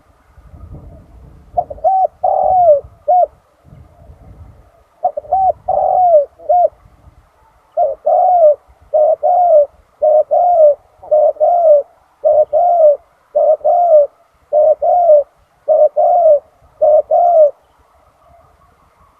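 Spotted dove cooing loudly in repeated phrases. Short groups of coos come at first, then a quicker, steady run of paired coos that stops near the end.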